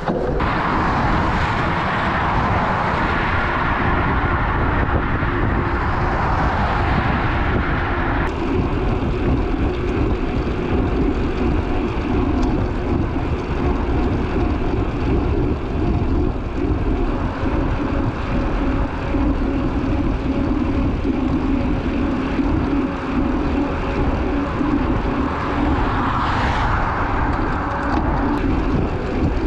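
A steady, loud engine drone mixed with rushing air noise, its pitch holding level. The higher rushing hiss drops suddenly about eight seconds in and swells briefly again near the end.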